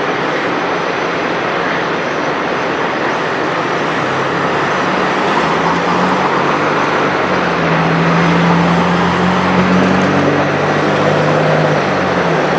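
Steady city street traffic noise, with a vehicle engine's low hum that comes in about four seconds in, grows louder, then fades out near the end as it passes.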